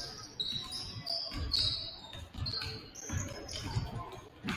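A basketball bouncing several times on a gym floor, with sneakers squeaking in short, repeated high chirps. A sharp bang comes near the end.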